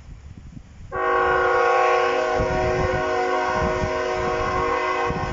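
A diesel freight locomotive's air horn starts abruptly about a second in and is held as one long, steady blast of several tones sounding together.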